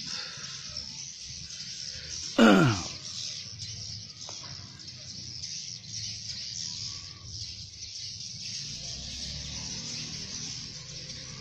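Steady high-pitched twittering of many swiftlet calls. About two and a half seconds in, a single loud tone sweeps quickly downward in pitch.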